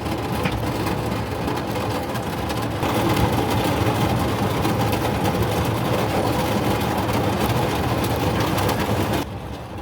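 Thunderstorm heard from inside a campervan: a steady rumbling roar of rain and rolling thunder. It grows louder about three seconds in and cuts off suddenly near the end.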